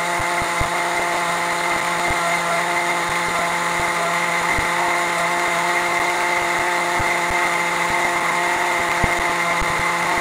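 Electric countertop blender running steadily, blending a liquid mix of cream, condensed milk, cream cheese, gelatin and peanut butter.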